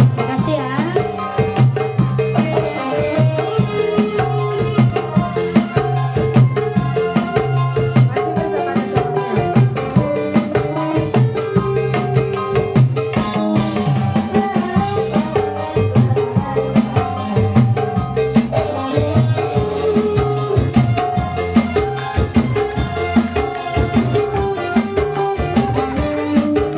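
Live dangdut band music played loud through a sound system: an electronic keyboard melody over a driving hand-drum (kendang) rhythm.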